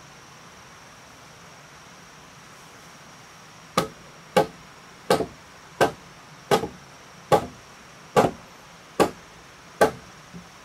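Hand tool chopping into a wooden timber beam, shaping its end for a house frame joint. Nine sharp, evenly paced strikes begin about four seconds in, some with a quick second knock.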